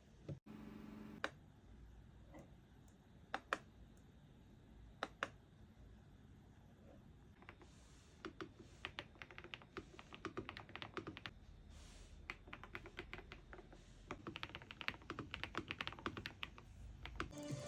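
Keys of an Aula F108 Pro mechanical keyboard clacking: a few single keystrokes at first, then fast continuous typing from about eight seconds in.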